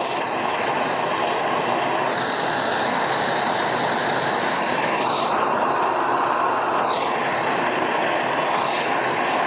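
Handheld propane torch flame burning steadily, heating brass knife bolsters until the soft solder in the joint melts and flows.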